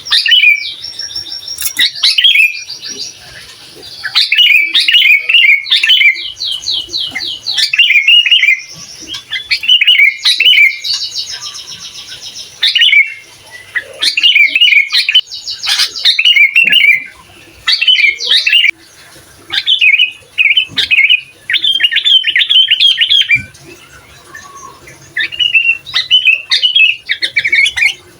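Sooty-headed bulbul (kutilang) singing loudly and continuously: a string of bubbly chattering phrases mixed with fast, high trills, broken by a few short pauses.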